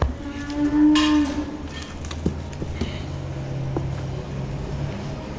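A Holstein heifer mooing once, loud, for about a second near the start, over a steady low hum.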